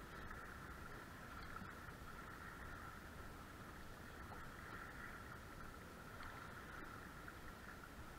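Faint, steady outdoor noise of wind and choppy water around a small fishing boat, with a constant faint high hum and no distinct events.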